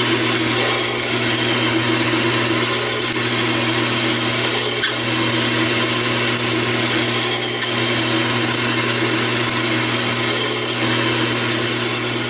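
Taig micro lathe running at a steady speed while a twist drill in the tailstock chuck cuts into a spinning 1018 steel rod: a steady motor hum with an even cutting hiss over it.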